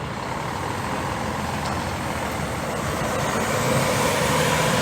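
City street traffic, led by a heavy road vehicle running close by: a steady engine drone over traffic noise that grows gradually louder.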